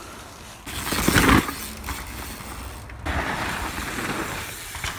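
Mountain bikes on a dirt woodland trail: tyre noise over the dirt and wind on the phone microphone, broken into short clips that change abruptly. A loud rush of noise comes about a second in.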